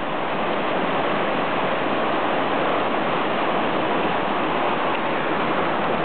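River rapids rushing over rocks: a steady, unbroken rush of water.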